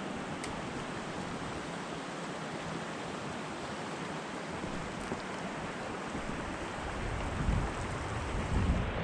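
Steady rush of a mountain river running high with spring snowmelt. From about seven seconds in, uneven low buffeting of wind on the microphone joins it.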